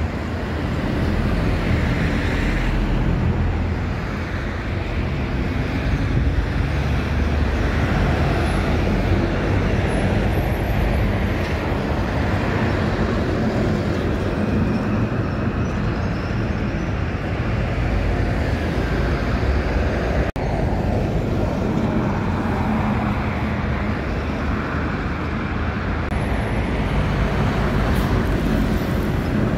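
City buses and other traffic passing on a busy avenue: steady engine rumble and tyre noise, with a momentary break about two-thirds of the way through.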